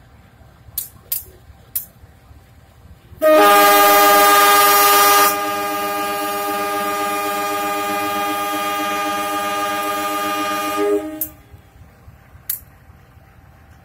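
CC 203 diesel locomotive's air horn sounding a long departure blast, a chord of several notes: loudest for about the first two seconds, then held a little quieter for some six seconds before it cuts off. A few faint clicks come before and after the horn.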